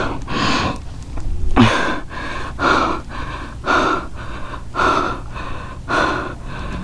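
A man breathing hard and fast, about one heavy gasping breath a second, out of breath with excitement.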